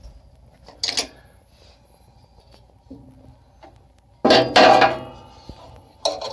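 Metal knocks and clatter from handling parts inside a pellet stove while a new igniter is fitted into its holder. A single click about a second in, a loud clatter lasting about a second just after four seconds, and small rattling knocks near the end.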